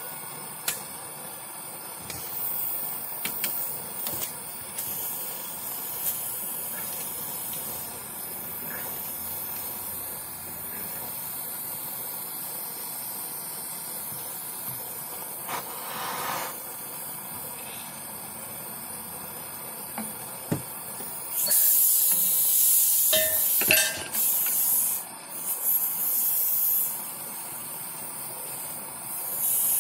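Propane torch burning with a steady hiss as it heats a rust-seized wheel hub to free the axle. About two-thirds of the way through, a louder, higher hiss comes and goes in several spurts, with a few small clicks.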